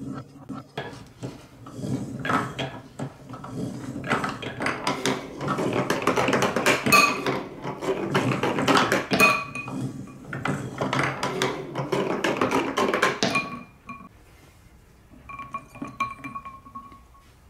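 Balls clattering and clicking through a toy marble run as its lever-worked stair-step lifter pushes them up, with ringing tones from a glass bowl of water several times as balls drop in. Near the end, after a short lull, a few softer clinks and ringing from balls knocking against the glass bowl.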